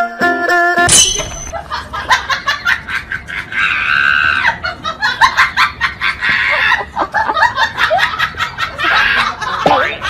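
Plucked-string background music cuts off about a second in, then people laugh in repeated fits, with some squealing and a few words.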